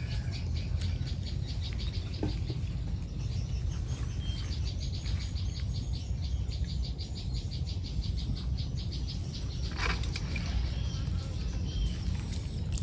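Outdoor countryside ambience: a rapid, evenly pulsed chirping of several chirps a second, which thins out later on, over a low steady rumble.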